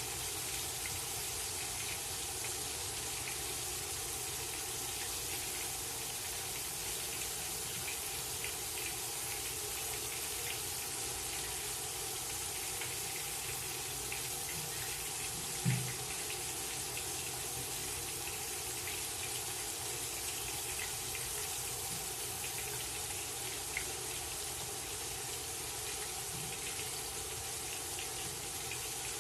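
Dredged fish fillets frying in peanut oil in a cast-iron pan: a steady sizzle with small crackles as the moisture boils out of the fish. A single dull knock about halfway through.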